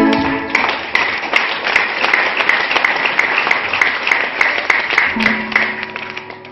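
An electronic organ chord cuts off about half a second in. Applause follows, with the clapping falling into an even beat of about two to three claps a second, and it fades near the end as a held keyboard note comes in.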